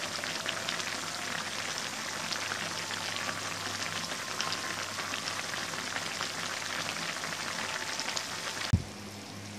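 Soy-sauce braise of chicken offal, wings and feet boiling hard in a pan, a dense crackle of many small popping bubbles. Near the end it breaks off with a short thump, and a quieter hiss follows.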